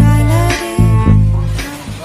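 Background music with a heavy bass line, fading near the end.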